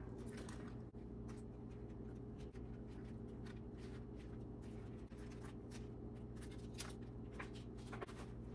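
Soft rustles and light taps of washed romaine lettuce leaves being handled and laid down one by one on a cloth tea towel, over a steady low hum.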